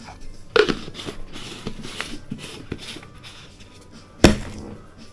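Tabletop handling noise from containers being moved: a sharp click, then a couple of seconds of scraping and rattling, then a loud knock with a short ring about four seconds in.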